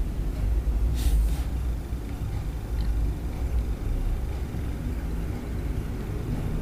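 Steady low rumble, with a brief hiss about a second in.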